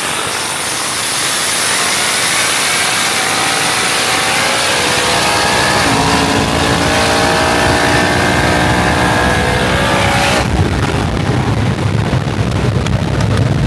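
A high-powered car's engine accelerating hard at full throttle, its pitch climbing, dropping with a gear change about six seconds in and climbing again, until the throttle is lifted about ten seconds in and only a low rumble remains.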